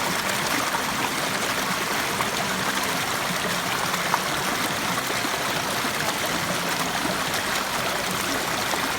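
Waterfall: a steady rush of falling water, even and unbroken, with one small click about four seconds in.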